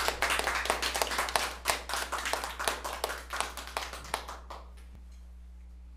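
Small audience applauding, with separate claps easy to pick out; the clapping thins and dies away about four and a half seconds in.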